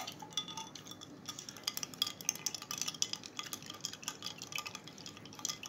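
Ice cubes clinking and rattling against a glass as they are dropped in and stirred, a quick, irregular run of small clinks with short glassy rings.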